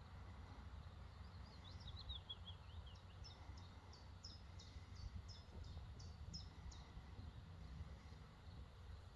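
Faint birdsong over a low, steady background rumble: a quick twittering phrase about a second and a half in, then a run of about ten short, high notes, evenly spaced at about three a second.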